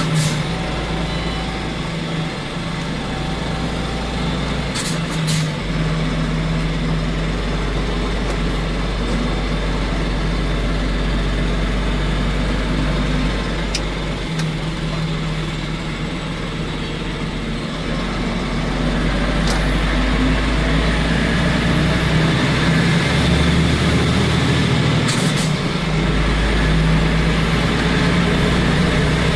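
Semi-truck diesel engine heard from inside the cab through an open roof hatch, running while driving; the deep engine note drops away and picks up again several times, and it gets louder in the last third as the engine pulls harder. A few short sharp clicks are heard along the way.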